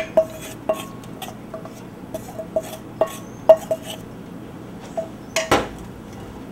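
A spoon clinking and tapping against a cooking pot: a dozen or so uneven clinks, each with a short ring. The loudest comes about three and a half seconds in, and a louder double knock follows about five and a half seconds in.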